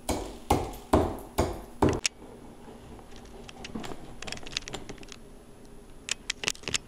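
A hand-held rock pounding coffee beans on a flat grinding stone: five sharp strikes about two a second, then fainter scattered clicks, and a few quick clicks near the end.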